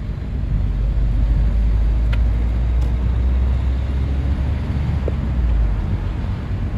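Charter fishing boat under way: the engine's steady low rumble, mixed with wind and water noise.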